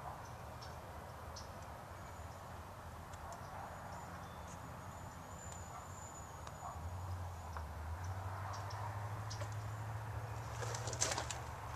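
Outdoor ambience with a faint high chirping call, a low steady hum that comes in about halfway, and a few sharp clicks near the end.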